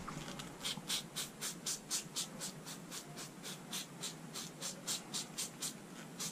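Hand pump spray bottle squirting degreaser onto a soot-caked diesel EGR valve, one short hiss after another at about three to four squirts a second.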